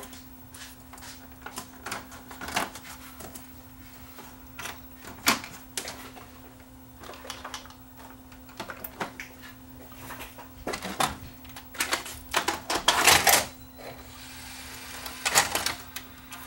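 Scattered plastic clicks, snaps and knocks from hands fitting the front cover onto a Sony VCR, with a louder clattering flurry about thirteen seconds in, over a faint steady hum.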